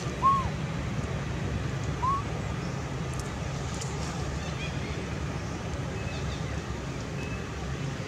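Steady low outdoor rumble, with two short high calls that rise and fall, the first just after the start and the second about two seconds in. Faint higher chirps follow later.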